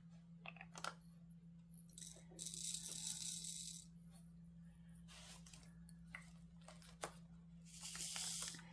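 Small plastic diamond-painting drills poured from a vial into a plastic drill tray: a rattling hiss lasting about a second and a half, a couple of seconds in. Near the end the tray is shaken to settle the drills, a shorter rattle. There are a few light clicks of the vial and tray between, over a steady low hum.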